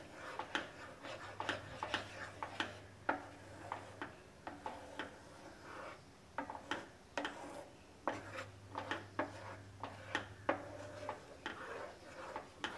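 Spatula stirring a thick milk-powder mixture in a nonstick pan, scraping and tapping against the pan in a quick, irregular run of clicks and scrapes.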